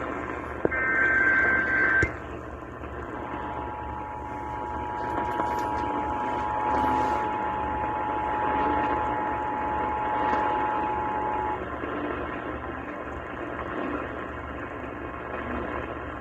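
Emergency Alert System broadcast over radio static: the last burst of the buzzing digital SAME header ends about two seconds in. About a second later the EAS two-tone attention signal sounds as one steady tone for about eight seconds and cuts off abruptly, leaving only hiss. This announces the next alert message.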